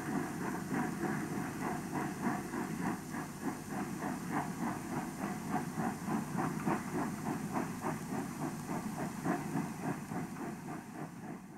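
Steam locomotive pulling away, its exhaust chuffing in a quick, even beat of about four a second, fading out near the end.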